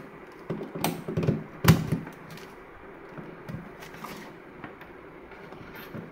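A Spigen GaN wall charger's plug pushed into a power-strip socket: a couple of clicks, then a sharp knock just under two seconds in. After it come faint handling sounds of the cable and plastic.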